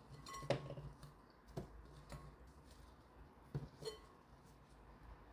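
Wedges of raw kabocha squash being set down in a wok, giving a handful of soft, faint knocks and taps against the pan and each other.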